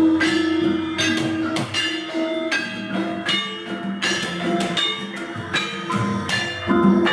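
Javanese gamelan ensemble playing: bronze metallophones and bonang gong-chimes struck in quick, even strokes, each note ringing on, with kendang hand drums and long gong tones beneath.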